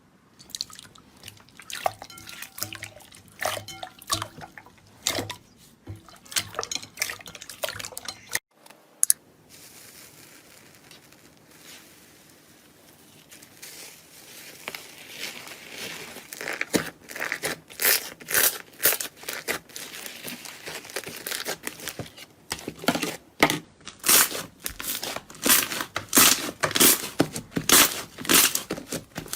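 Slime being squeezed and pressed by hand, making a run of wet clicks and pops. They come scattered at first, fall quieter for a few seconds around the middle, then come thick and fast over the last dozen seconds.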